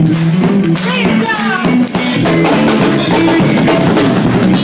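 Live band music: a drum kit keeping the beat with bass drum and snare hits under sustained instrument notes and a few gliding pitched lines.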